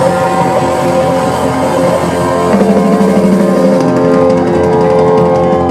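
Live blues-rock band playing loudly: sustained, wavering electric guitar notes over drums and the rest of the band.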